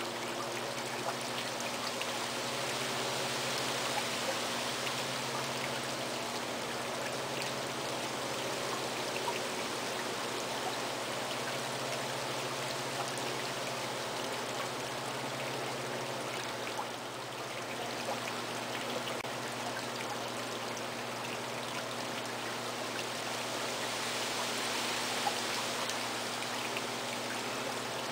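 Potter's wheel running with a steady low hum while wet hands shape the rim of a large spinning clay pot, making a continuous watery swishing, with a brief dip about two-thirds of the way through.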